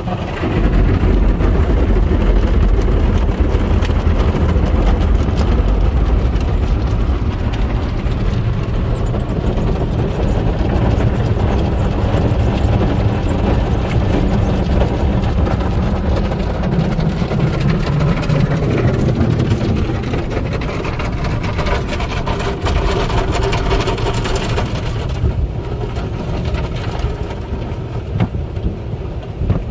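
MCWW tunnel car wash heard from inside the car: cloth wash media and mitter curtains scrub and slap across the body and windshield while water sprays. The loud, steady noise with a heavy low rumble comes up sharply about half a second in.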